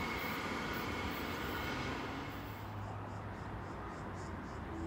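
Queensland Rail electric train running at a distance: a steady rumble with a faint high whine that fades about halfway through.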